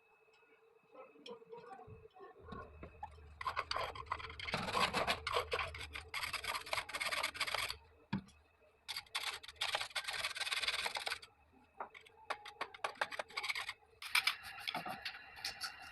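Scraping and rubbing from hand work on plumbing fittings, in three bursts of dense scratchy noise a few seconds each.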